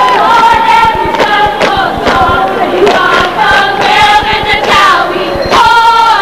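A crowd cheering and yelling, with many high voices shouting at once and holding their calls. Sharp short knocks run through it.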